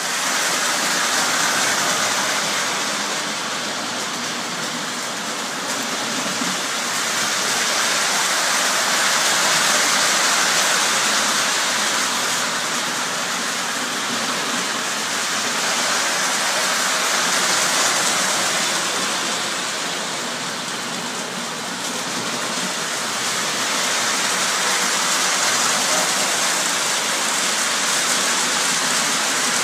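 Model trains running on the layout's track: a steady rolling roar of wheels and motors that swells and eases a little as they pass.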